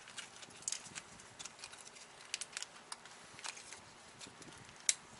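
Small foil packet of wheel-bearing grease crinkling and crackling as it is handled and opened, in scattered sharp clicks, the sharpest near the end.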